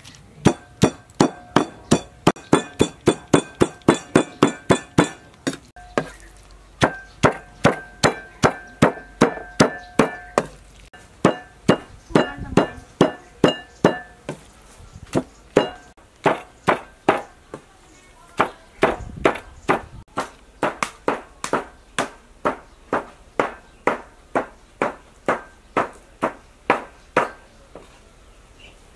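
Cleaver chopping pork on a round wooden chopping board, mincing diced pork fat: a steady run of knocks, about two to three a second, each stroke with a short metallic ring from the blade.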